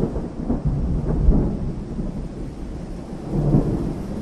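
Steady rain with low rumbling thunder, the rumble swelling about three and a half seconds in.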